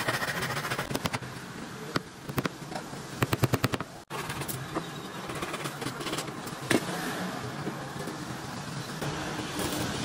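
Hand saw rasping through a thin wooden panel in back-and-forth strokes, with a quick run of strokes about three seconds in. The sound breaks off suddenly a second later, then the noise carries on with a few sharp knocks.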